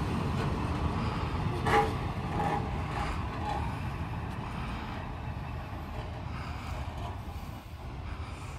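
Heritage diesel railmotor pulling away along the track: a low rumble that fades as it goes, with a short sharp sound about two seconds in.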